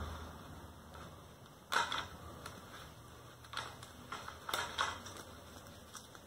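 Scattered handling clicks and rustles as rubber strips are unwound from the joint of a telescopic fishing rod, the loudest about two seconds in and a few more after the middle.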